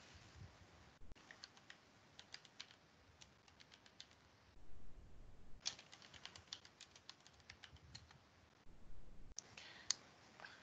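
Faint computer keyboard typing: short runs of key clicks with pauses between them, as a terminal command is typed. Two brief stretches of low background noise fall between the runs.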